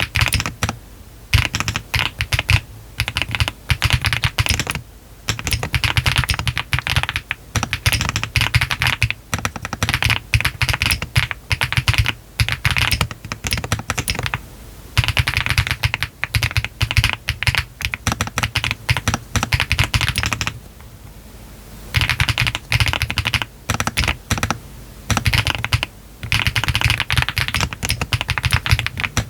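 Typing on a Meletrix ZOOM TKL mechanical keyboard with Yogurt switches, all foams installed, a polycarbonate flex-cut plate and PBT keycaps: a fast, steady run of keystrokes broken by short pauses, the longest about twenty seconds in.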